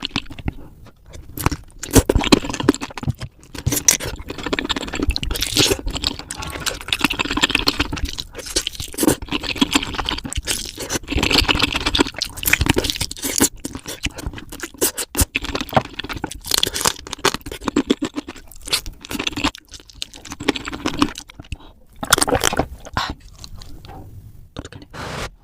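Close-up eating sounds of crispy fried chicken in hot sauce being bitten and chewed: dense, rapid crunching of the crispy coating with wet chewing, broken by a few short pauses.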